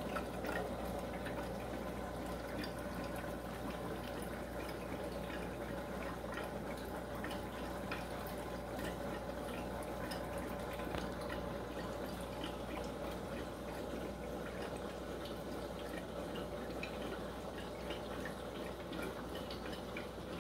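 Aquarium's air-driven sponge filter bubbling steadily, water gurgling with many small pops over a steady low hum.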